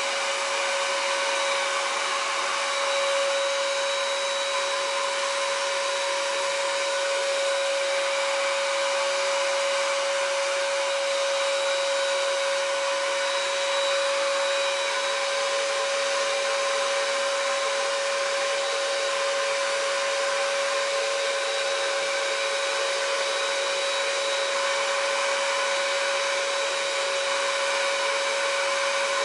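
Patriot SG 550 electric paint sprayer's turbine blower running steadily, a continuous blower noise with a steady whine, as it powers the spray gun.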